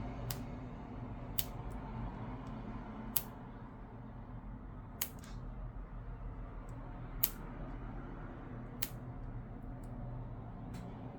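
About seven sharp, separate clicks at uneven intervals from small tools and plastic parts being handled during an iPad repair, over a steady low hum.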